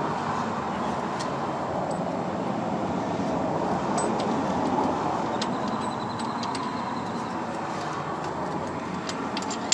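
Steady background hum of a repair shop with scattered light metallic clicks and clinks as a part is worked loose and lifted out of the engine bay.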